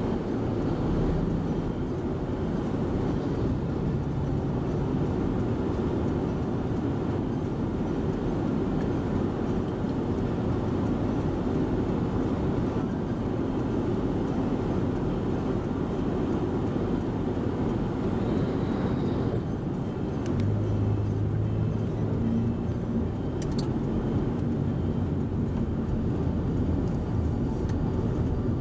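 Steady low road and engine rumble of a Toyota Voxy minivan being driven, heard from inside the cabin.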